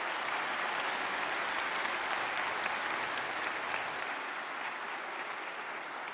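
A large seated audience applauding, a steady wash of many hands clapping that eases off a little in the second half.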